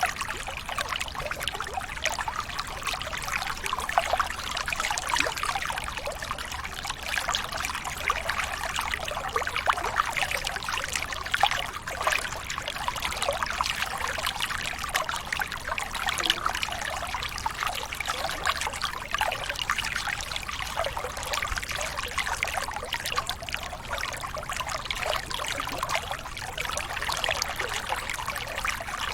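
Running water trickling and splashing steadily, with many small splashes over an even rush.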